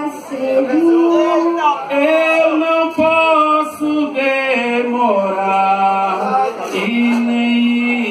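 A boy's solo voice singing a maracatu de baque solto verse through a microphone, in long held notes that slide from one pitch to the next, with no drums.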